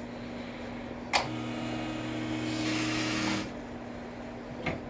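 A sharp click, then a small electric motor runs steadily for about two seconds and stops, over a steady low background hum.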